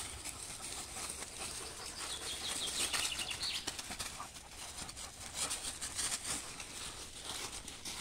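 Dry fallen leaves rustling and crackling under paws and feet, in many small quick crackles, as two German Shepherds scuffle and run over them.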